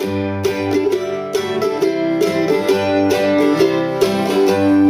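Acoustic string music in a bluegrass style: quick picked notes over lower held bass notes.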